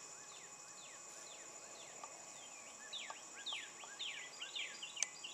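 Small wild birds calling: many short whistled notes, each sliding downward, several a second and overlapping, over a steady high-pitched whine and faint hiss. A single sharp click about five seconds in.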